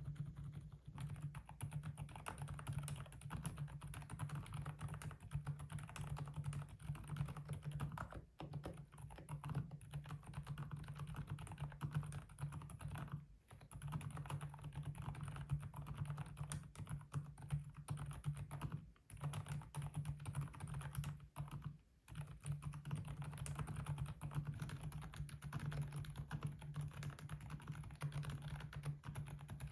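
Mechanical keyboard fitted with Kailh Deep Sea Pro Whale silent tactile switches being typed on continuously: a fairly quiet, irregular clatter of keystrokes, broken by short pauses about 8, 13, 19 and 22 seconds in.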